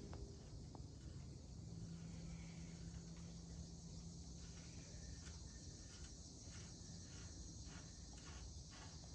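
Faint background with a low steady hum and soft short clicks, which come more regularly, about two or three a second, in the second half.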